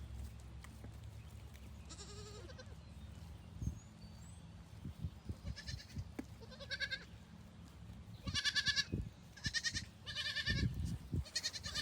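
Goats bleating: a run of six or seven short, quavering bleats, coming closer together in the second half, with a few dull thumps in between.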